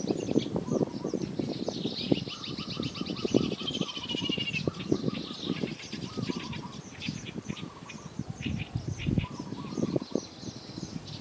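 Birds calling: a rapid trill of high chirps about two seconds in, rising slightly and lasting about two and a half seconds, with other shorter calls scattered through. Continual low crackling underneath.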